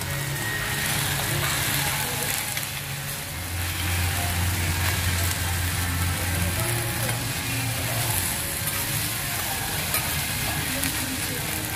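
Yakisoba noodles and cabbage sizzling on a hot iron teppan griddle, with two metal spatulas scraping and tossing them across the plate.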